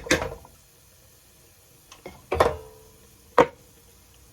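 Metal cookware clanking: a quick clatter of knocks at the start, then two single knocks, each with a short ring, about two and three and a half seconds in.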